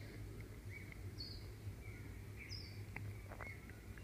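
Faint birds chirping: a handful of short, high chirps with small falling glides, over a low steady hum.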